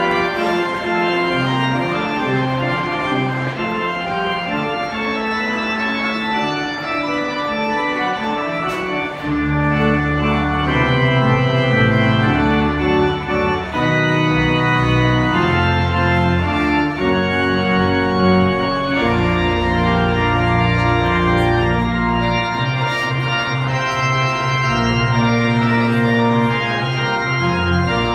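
Church organ played from a console with manuals and a pedalboard: slow sustained chords, with deep pedal bass notes coming in about nine seconds in.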